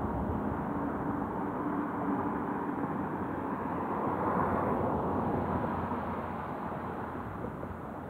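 Road traffic: a steady rush of passing vehicles, with one going by more loudly about four to five seconds in, and the noise easing off toward the end.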